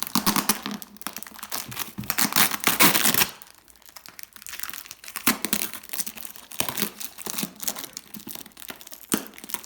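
Packing tape being ripped and peeled off a heavily taped package, with crinkling. The loudest rips come in the first three seconds, then lighter crackling.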